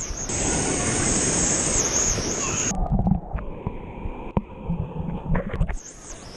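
Waves washing in the shallows with wind on an action camera's microphone. About three seconds in the sound turns muffled for about three seconds, with a few sharp knocks, as the camera dips into the water, then the open surf sound returns.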